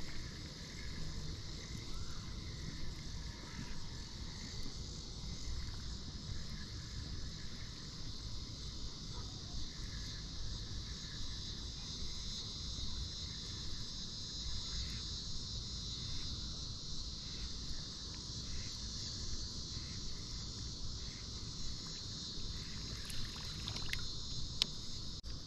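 Steady, high-pitched chorus of insects, crickets or similar, running without a break over a low rumble, with a few sharp clicks near the end.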